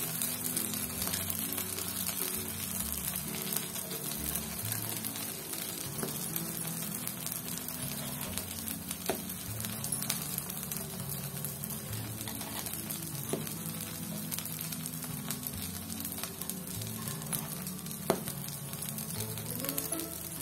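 Paddu batter sizzling steadily in oil in a cast-iron paddu pan, with a few sharp clicks of a metal spoon against the pan as the balls are turned, the loudest near the end. Soft background music plays underneath.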